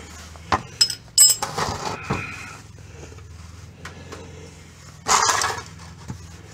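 A metal wrench clinking against metal fittings under the car while working the oil drain plug: a few sharp, ringing clinks in the first second and a half, then scraping. A short, louder noise comes about five seconds in, over a steady low hum.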